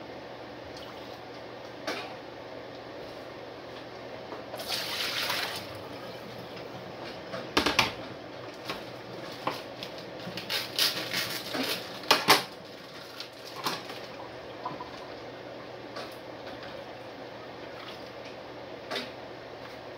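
Kitchen clatter of pots and dishes: sharp knocks and clinks, the loudest around the middle, with a rush of water lasting about a second, five seconds in, as water goes into a large stainless stock pot. A steady fan hiss runs underneath.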